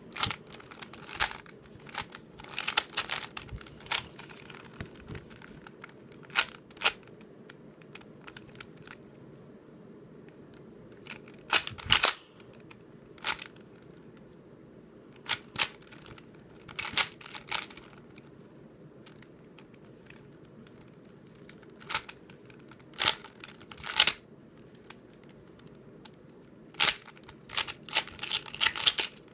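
YJ Sulong 3x3 speedcube being turned fast by hand: bursts of quick plastic clicks and clacks as the layers snap round, broken by short pauses.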